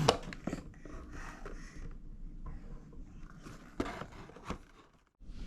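Scraping and rustling with several sharp clicks, the loudest right at the start and another pair a little before the end.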